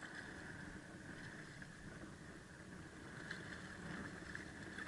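Faint, steady background of a small boat on open water: wind and water wash with a constant hum. A hooked redfish splashes at the surface near the hull, with light splashes about three and four seconds in.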